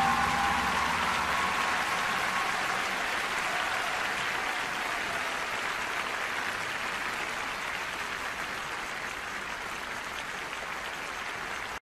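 Arena audience applauding, a dense even clatter that slowly fades. The last of the music dies away in the first few seconds, and the sound cuts off abruptly near the end.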